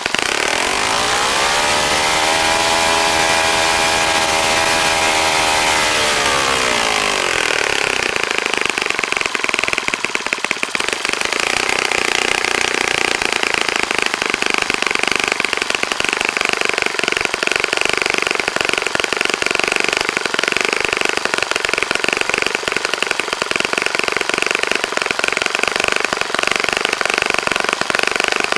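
Saito FA-65 four-stroke glow engine turning a 12x6 propeller on its first run after a rebuild. Its pitch rises, holds for several seconds and falls back about eight seconds in, then it runs steadily.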